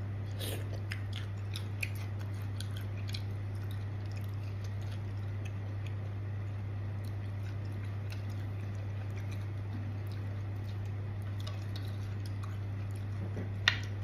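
A person chewing a mouthful of spicy santol and raw-shrimp salad, with crisp crunches in the first few seconds that give way to quieter chewing. A steady low hum runs underneath, and a spoon clinks once on the plate near the end.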